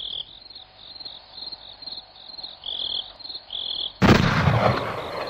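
Faint, repeated high chirps. About four seconds in, a sudden loud explosion-like boom cuts in and rumbles on for about a second.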